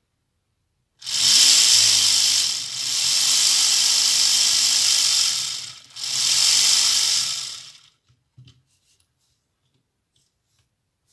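Lego brick model cylinder engine running, its plastic pistons, gears and shaft clattering loudly at speed for about seven seconds, dipping briefly twice before it stops.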